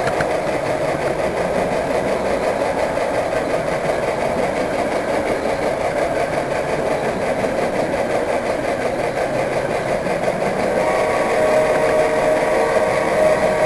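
Model train running steadily, heard from the camera car riding on it: an even rolling rumble of the wheels on the track and the drive. A faint steady hum joins near the end.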